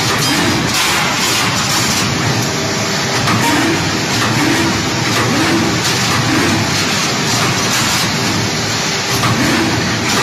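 Automatic rebar straightening and bending machine running, a loud steady mechanical din. A low motor whir swells and fades about once a second as it feeds and bends the steel wire.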